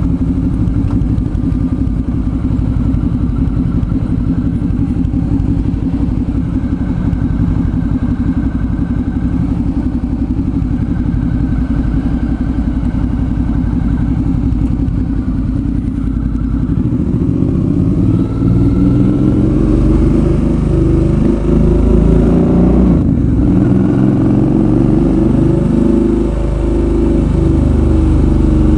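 Suzuki V-Strom 650's V-twin engine running steadily under way, then from about two-thirds of the way in the revs climb and drop again and again as it accelerates through the gears.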